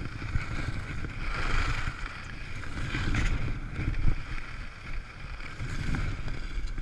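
Skis sliding over groomed snow, a steady rushing hiss with wind buffeting the action camera's microphone.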